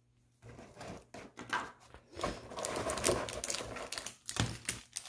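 Plastic packaging and cards being handled: quick clicks and taps with crinkling, busiest past the middle.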